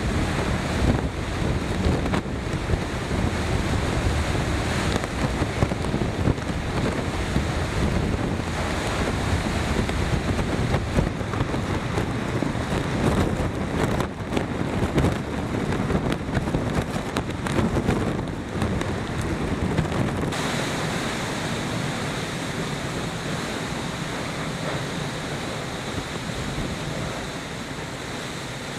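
Hurricane-force wind and driving rain, the gusts buffeting the microphone with a heavy rumble. About two-thirds of the way through the rumble drops away, leaving a steadier rush of wind and rain that slowly fades.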